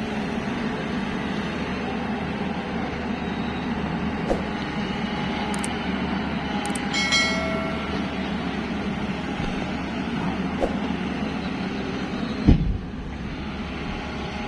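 Tata Hitachi EX215 super long reach excavator's diesel engine and hydraulics running steadily. A brief high-pitched tone comes about halfway through, and a sharp thump near the end, after which the machine sound drops a little.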